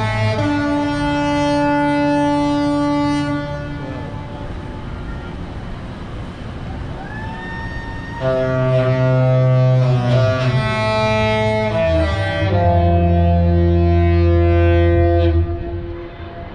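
Cruise ship horns trading a salute: the Disney Dream's horn sounding a tune of long held notes, answered by the Virgin Voyages ship's horn. The horns sound in two loud stretches of sustained notes at several pitches, with a quieter gap in the middle.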